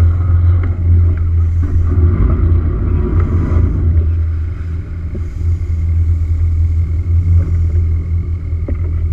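Fire boat's engine and pump running with a steady low drone, mixed with the rush of the jet from its bow-mounted water cannon.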